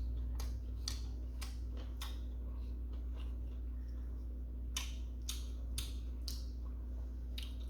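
Close-up eating sounds: irregular sharp clicks and crisp ticks, thicker about five seconds in, over a steady low hum.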